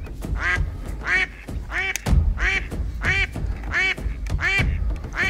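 A live decoy hen duck quacking in a steady series of about eight evenly spaced quacks, calling to draw drakes in.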